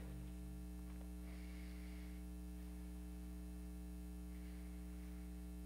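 Steady low electrical mains hum on the sound system, with no other clear sound.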